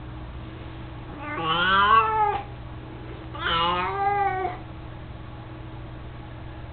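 Domestic cat meowing twice, each meow about a second long and rising then falling in pitch.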